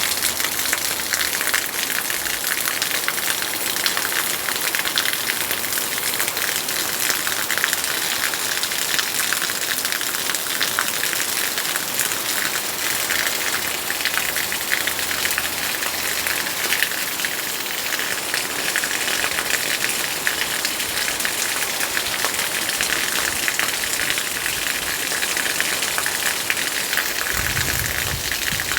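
Heavy rain falling steadily, a dense continuous patter of drops on surfaces.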